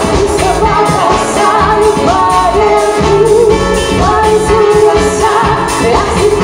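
Live pop-rock band playing with a female lead vocal singing over electric guitar, bass and drums with a steady beat.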